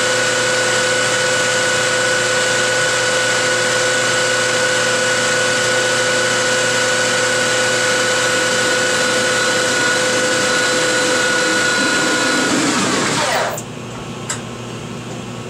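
Metal lathe running at speed, a steady whine with rubbing noise, as a spinning chrome-moly tube is pressed against a stationary tube for friction welding, the joint heating to red. About 13 seconds in the lathe is shut off: the whine falls in pitch and the sound drops away to a faint hum, with a single click shortly after.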